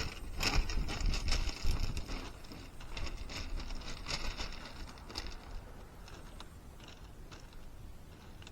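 Footsteps crunching on a pebble beach, an irregular run of sharp crunches that thins out after about five seconds.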